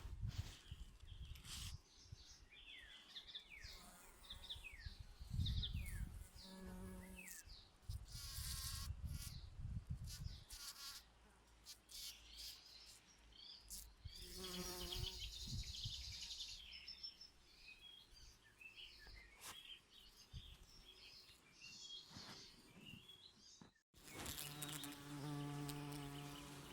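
Bees buzzing around flowers, the hum swelling as one passes close, several times. Small birds chirp in the background.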